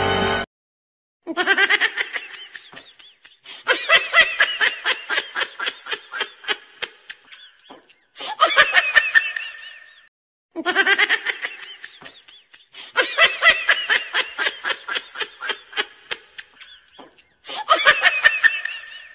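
Dubbed-on laughter sound effect: a person laughing in fast, pulsing peals that start abruptly and break off into dead silence. The same run of laughs plays twice.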